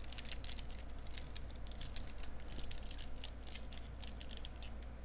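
Trading-card pack wrapper crinkling and crackling in a rapid run of small clicks as fingers pick at it and work it open, over a steady low hum.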